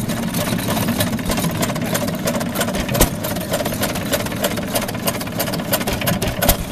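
A Domestic side-shaft hit-and-miss engine running and belt-driving a string-making (braiding) machine, the two together giving a dense, fast mechanical clatter of many small clicks, with one louder knock about three seconds in.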